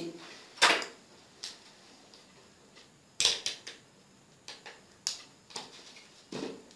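Hands handling a 9-volt battery, its clip leads and a digital multimeter with its probes: a string of about eight short sharp clicks and taps, irregularly spaced, with the loudest about half a second in and a quick cluster about three seconds in.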